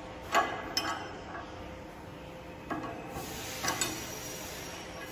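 Steel hand tools and the clamp collar of a portable line boring bar clinking as a hex key is worked by hand: a few short, sharp metal clicks, the loudest about half a second in and a close pair near the end, over a faint steady hum.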